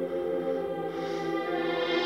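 Backing-track music: a sustained chord of held tones, with a faint swell of hiss about halfway through.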